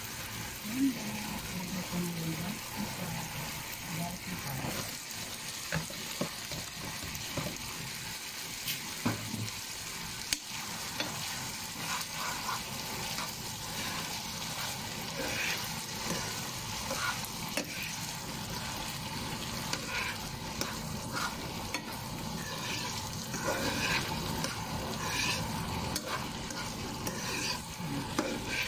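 Pork cubes sizzling in a nonstick frying pan with a steady hiss. Diced tomatoes and peppers are dropped in by hand and stirred with a spoon, which taps and scrapes against the pan in scattered clicks, more often in the second half.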